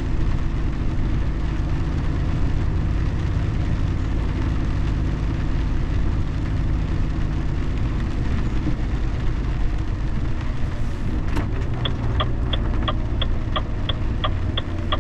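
Steady road and engine rumble heard from inside a car while driving. A little after two-thirds of the way through there is a single click, then an even ticking of about three clicks a second starts, like a turn-signal indicator.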